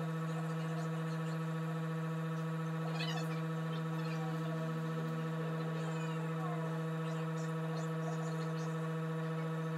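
Steady electrical hum with a buzzing ladder of overtones, unchanging throughout, with faint brief high squeaks about three seconds in.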